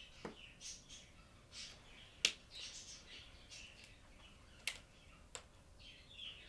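Felt-tip markers being handled and a cap pulled off, giving sharp plastic clicks: one about two seconds in and two smaller ones near the end. Faint high chirping runs on behind them.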